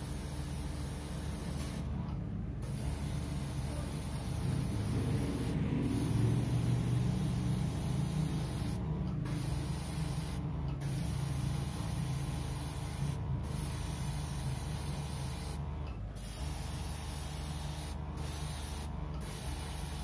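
Airbrush spraying thinned skin-tone lacquer paint: a steady hiss of air that breaks off briefly several times as the trigger is eased, over a steady low hum.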